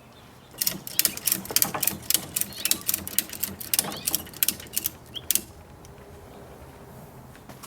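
Husky self-retracting ratcheting tie-down strap being ratcheted tight: a quick, uneven run of sharp pawl clicks that starts about half a second in and stops after about five seconds.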